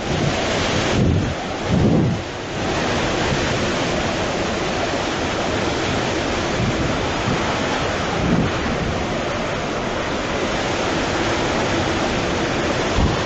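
Hurricane-force wind blowing over the microphone: a few heavy gusts in the first couple of seconds, then a steady rush of wind noise.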